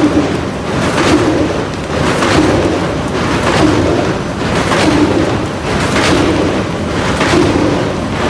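Automatic three-colour flexo printer-slotter-rotary die cutter running, feeding corrugated carton blanks through its rollers onto the outfeed conveyor. A steady loud machine din with a repeating rustling clatter about every 1.2 seconds, one beat per sheet cycle.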